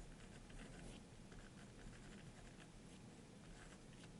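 Faint scratching of a Caran d'Ache 844 mechanical pencil's 0.7 mm HB lead on paper as it writes in short, irregular strokes.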